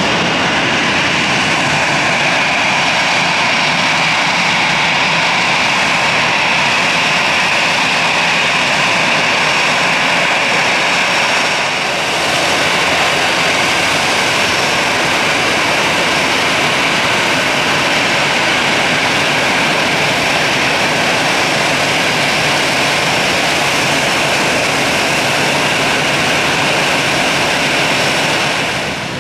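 Airbus A320's twin jet engines running at low taxi thrust: a steady high whine over a rushing hiss as the airliner taxis in to its gate.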